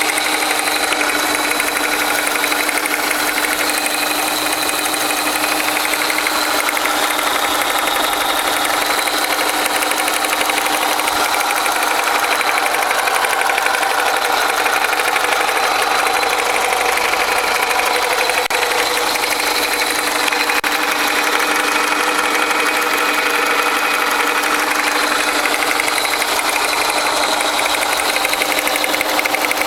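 Toyota 5S-FE 2.2-litre inline-four idling with a steady, rapid knock whose rate follows engine speed. The knock is of unknown cause: it does not change when the spark plugs are disconnected one at a time, and it is strongest at idle.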